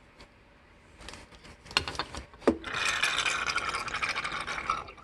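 Plastic parts of a Kenmore water softener's control valve being handled. There are a few knocks and clicks and a short squeak, then a steady scraping rub from just under three seconds in.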